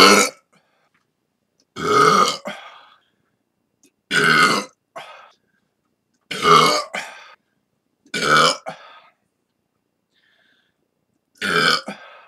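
A person belching over and over: one burp already sounding at the start, then five more deep, drawn-out burps about two seconds apart, each lasting about a second.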